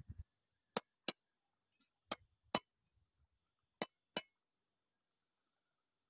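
Six sharp knocks in three quick pairs, from hand strikes while a fish trap is being built.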